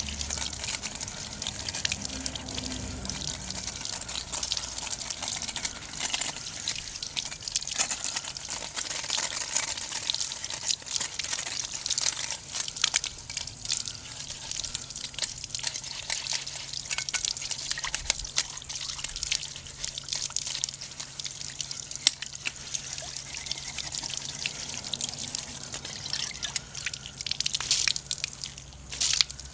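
Pot of oden broth simmering over a homemade wood stove, with the wood fire crackling: a dense, irregular patter of small bubbling pops and ticks. A faint steady low hum joins about halfway through.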